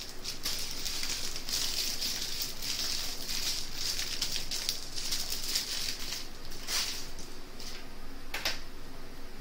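Small plastic bags of diamond painting drills rustling and crinkling as they are gathered up and slid across a table, with one sharp tap near the end.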